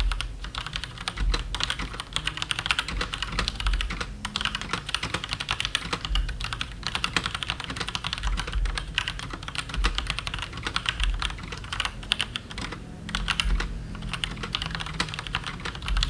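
Typing on an NKEY R1S mechanical keyboard fitted with Otemu red linear switches: a dense, continuous stream of keystroke clicks with a few brief pauses. The keys sound quiet, with no rattle from the long keys.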